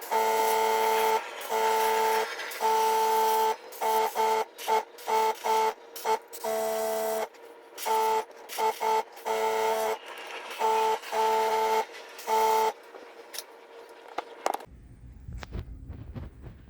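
A 3D printer's stepper motors whine in short start-stop moves, the pitch holding steady through each move and changing once. About two thirds of the way through the moves stop, leaving a faint low rumble and a click.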